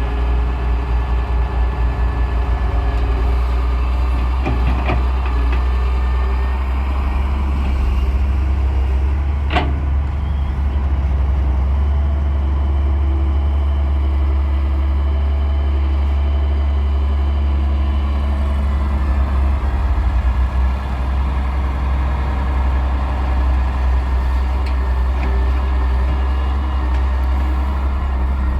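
Heavy diesel engine of a digger running steadily with a deep, low rumble. There is a sharp metallic knock about ten seconds in and fainter knocks around five seconds in.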